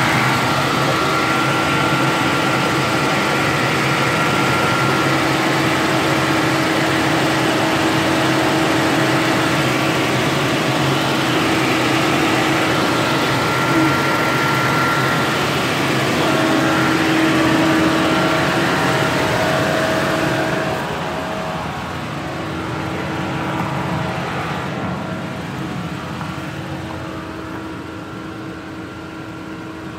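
2015 Chevy Cruze engine idling steadily, just restarted after a water pump and belt tensioner replacement, with a few steady held tones over the running noise. It gets somewhat quieter in the last third.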